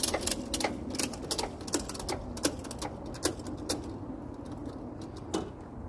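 An irregular series of sharp mechanical clicks and taps, several a second at first and fewer toward the end.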